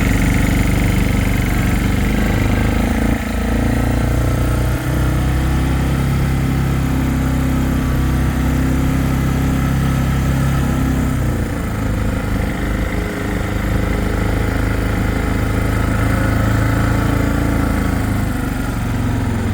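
Four-wheeler (ATV) engine running while being ridden through deep snow, its note shifting up and down a few times with the throttle.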